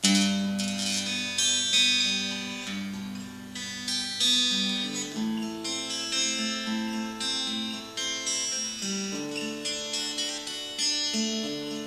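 Handmade guitar fingerpicked through a small amp with its reverb turned all the way up: an instrumental intro of plucked bass notes under a melody, starting sharply right at the first note.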